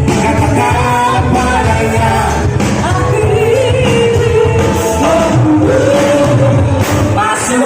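A song playing: a voice singing a wavering melody over a full backing track with a heavy low end, no break.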